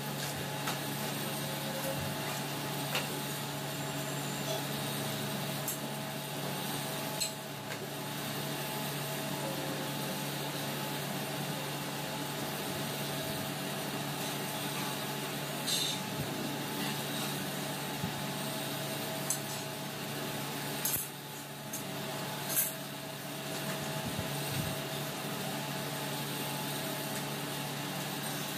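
A steady mechanical hum, with a few sharp knocks and clicks from a knife and chicken carcasses being handled on a granite counter during butchering.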